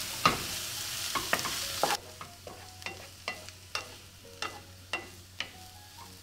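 Chopped crispy pork belly sizzling in melted margarine in a nonstick pan while a wooden spatula stirs it, clicking and scraping against the pan about twice a second. The sizzle drops sharply about two seconds in.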